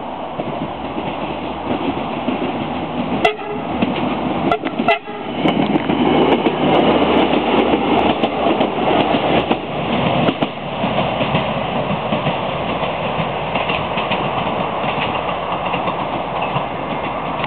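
Diesel passenger train running past a station platform, a steady rumble of engine and wheels. A few sharp clicks come about three to five seconds in, and the train is loudest soon after.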